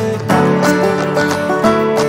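Background music led by plucked acoustic guitar with a steady beat.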